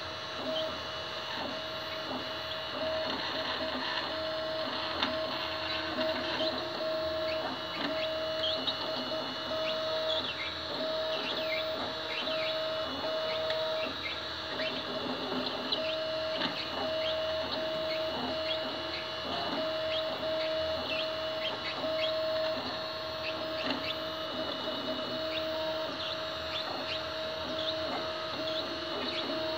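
FDM 3D printer at work: the stepper motors driving the print head whine and chirp in quickly changing tones, with a steady tone that breaks off briefly now and then, over a constant hiss.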